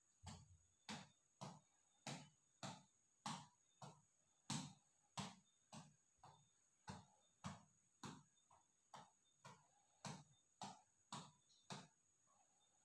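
Headband reflex boxing ball being punched over and over: faint, sharp taps of knuckles on the ball, about two a second in a steady rhythm, as the ball springs back on its elastic cord.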